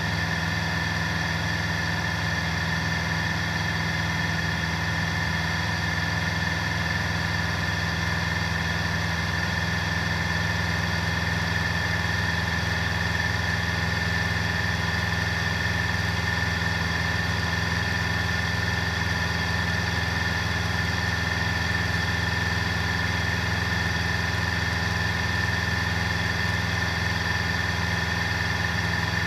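Grumman American AA-1 Yankee's four-cylinder Lycoming piston engine and propeller droning steadily in flight, heard from inside the cabin. The pitch and level hold constant throughout.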